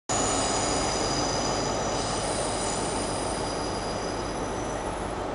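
First Great Western train rolling slowly over the curved station tracks, with a steady rumble and several high, steady wheel-squeal tones that slowly fade.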